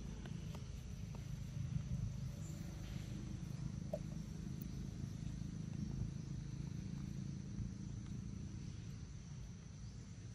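Forest ambience: a steady high-pitched insect drone over a low background rumble, with a few faint clicks.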